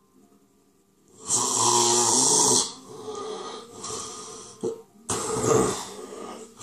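A person gasping for breath. After a near-silent pause, a long, loud, rasping breath comes about a second in, followed by softer breathing and a second loud gasp near the end.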